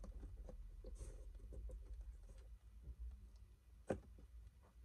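Faint rustling and light taps of fingers pressing and smoothing glued paper onto a cardboard box, with one sharper tap about four seconds in.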